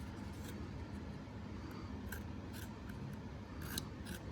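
Faint handling noise from a Westclox 83083 smoke alarm's plastic housing: a few scattered light clicks and rubs as it is turned over and its parts are pressed.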